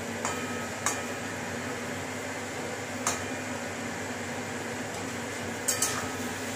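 Metal spatula clinking and scraping against a steel kadai as paneer cubes and capsicum are stirred, with about five sharp clinks over a steady hiss.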